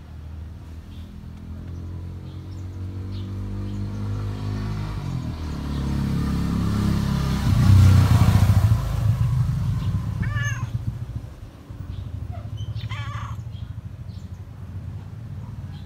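A motor vehicle passes close by, its engine growing louder to a peak about halfway through and then fading away. As it fades, a domestic cat gives two short meows.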